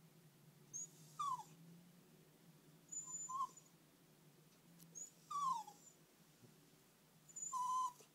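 Jack Russell puppy whining: four short whimpers, each starting with a thin high squeak, two of them sliding down in pitch. The puppy is whining in distress at being left behind by its owners.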